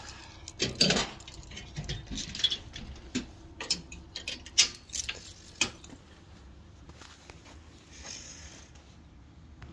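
Irregular light clicks, knocks and rustling, like objects and parts being handled and set down, busiest in the first six seconds and quieter after.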